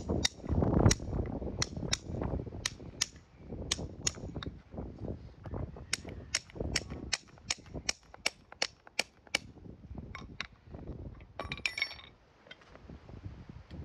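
Farrier's driving hammer tapping a clench cutter against a horse's hoof wall, a run of sharp metallic taps about two a second, cutting the nail clenches so the worn shoe can be pulled. Near the end comes a quick cluster of metal clinks with a short ring.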